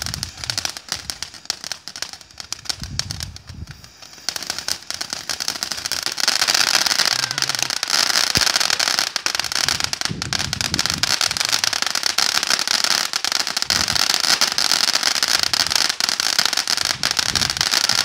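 Ground firework spraying sparks with a dense, continuous crackle of rapid small pops. It is fainter for the first few seconds and builds up about four seconds in.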